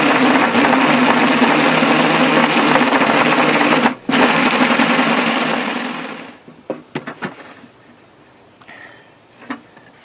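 Drill turning a 1½-inch hole bit, boring the entrance hole through the birdhouse's wooden side. It runs loud and steady, briefly stops about four seconds in, then winds down about six seconds in, followed by a few light knocks.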